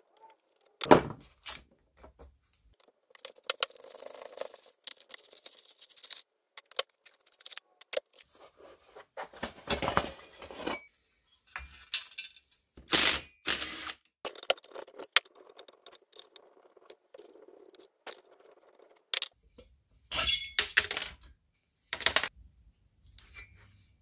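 Hand tools and metal parts of a Vespa Rally 200 two-stroke engine clinking, knocking and scraping as the engine is taken apart: scattered sharp clanks with stretches of scraping and rattling, the loudest knocks about a second in, around the middle and near the end.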